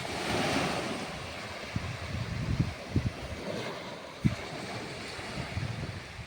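Wind blowing over the sea and buffeting the microphone, with the wash of waves and a few low thumps of gusts.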